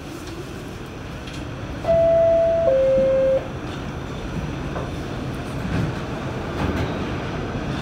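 Two-note falling door chime of an R46 New York City Subway car, a higher note then a lower one, each under a second, about two seconds in, over the steady rumble of the train in the station.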